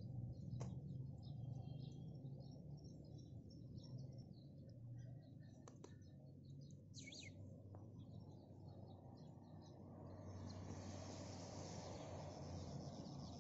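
Faint songbirds chirping over a low outdoor rumble, with one downward-sweeping call near the middle. From about ten seconds in, a steady hiss builds up under the birdsong.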